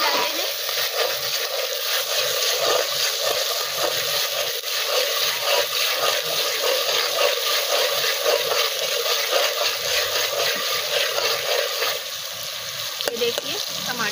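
Chopped tomatoes sizzling and crackling in hot oil in an aluminium pot, stirred and scraped with a slotted metal spatula. The sizzle eases a little about twelve seconds in.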